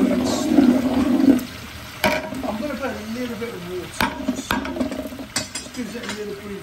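A stainless-steel spatula stirring a bubbling, frying curry base in a large aluminium stockpot, loud for the first second and a half. It then scrapes the pot with a wavering, squeaky sound, and gives a few sharp knocks on the metal.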